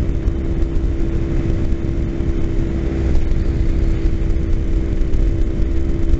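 Kawasaki Ninja 250's parallel-twin engine running steadily at highway cruising speed, heard from the rider's seat over a heavy low rumble of wind on the microphone, a little louder about three seconds in.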